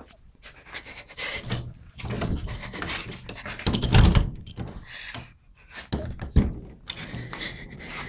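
A woman panting heavily in short, uneven breaths, with knocks and handling thumps against a door and wood around the phone. There is a louder thump about four seconds in and a sharp knock about six and a half seconds in.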